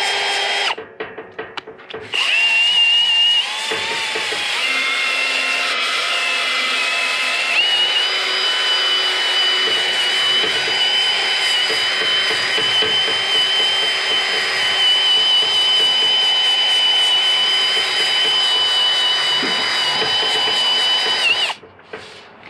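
Milwaukee cordless drill spinning a pad disc against a steel griddle top to scrub off burnt-on residue: a steady high motor whine with scrubbing noise. It stops about a second in and starts again a second later, wavers in pitch for a few seconds, then runs steadily until it stops near the end.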